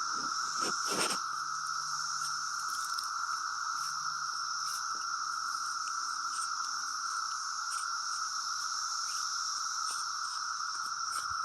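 A dense chorus of many cicadas, a steady unbroken shrill drone, with a few light knocks in the first second.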